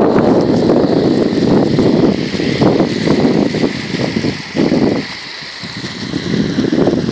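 Wind buffeting the phone's microphone in uneven gusts, easing about five seconds in, over the steady rush of water spilling over a concrete slab into a pond.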